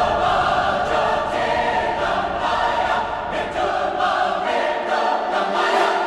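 Music with a choir singing sustained chords, with a few sharp hits cutting through.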